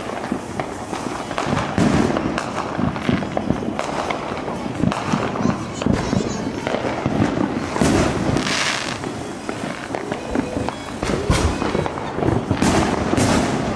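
Fireworks going off almost without pause: a dense stream of pops, bangs and crackling, with longer hissing crackles about eight seconds in and again near the end.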